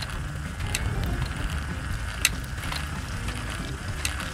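LEGO Technic motor driving the roller grill's chain and gear train: a steady low mechanical run with a few sharp clicks, the loudest about two seconds in.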